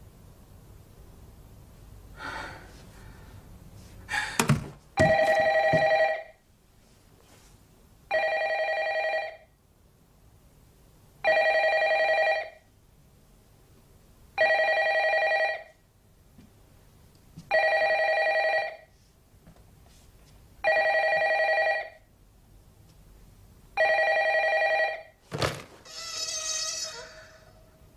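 Telephone ringing: seven rings, each about a second long, coming about every three seconds. A short knock comes just before the first ring and a sharp click just after the last, followed by a buzzing high sound near the end.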